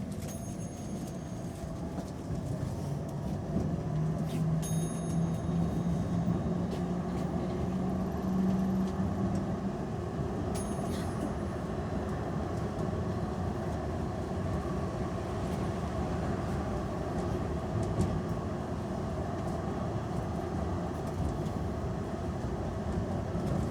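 Tram heard from inside the car, running on its rails: a steady rumble of wheels and car body, with the electric traction motor's whine climbing slowly in pitch for several seconds as the tram gathers speed. A few sharp clicks and faint high tones come through near the start, around five seconds in and around eleven seconds in.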